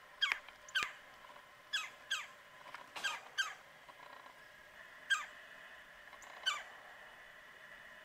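Red-bellied woodpecker calling: about eight short, loud calls, each sweeping sharply down in pitch, mostly in pairs a fraction of a second apart, at irregular intervals.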